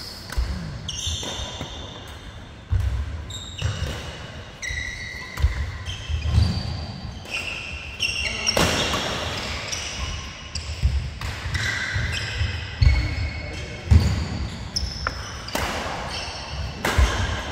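Badminton play on a synthetic court: sharp cracks of rackets striking the shuttlecock at irregular intervals, short high-pitched squeaks of sports shoes on the court mat, and thudding footsteps.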